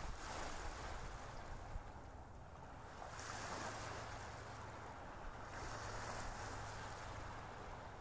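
A soft rushing noise that swells and fades in surges, like surf, over a steady low hum.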